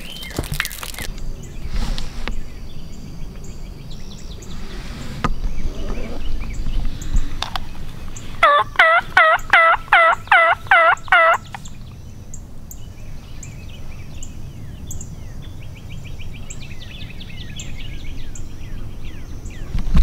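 Hunter imitating a turkey gobble with his voice, hand shaking his throat: about eight loud warbling notes in quick succession, starting about eight seconds in and lasting some three seconds. It is a locator gobble meant to make toms answer.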